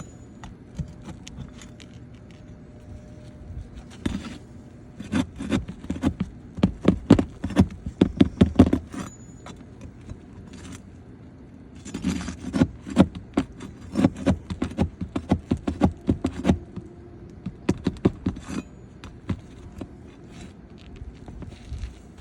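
Irregular clicks, taps and scrapes of a metal hand tool working under roof shingles to pull out the roofing nails, coming in two busy flurries with quieter gaps between.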